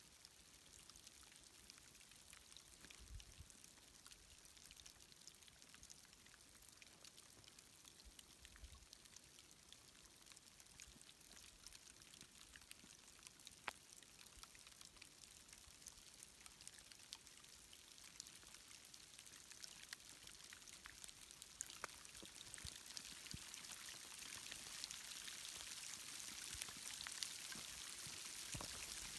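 Faint patter of falling snow: a soft hiss dotted with many small ticks, growing louder toward the end as the snowfall thickens.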